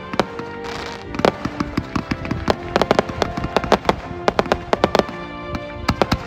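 Aerial fireworks bursting in many quick, irregular bangs and crackles, over background music.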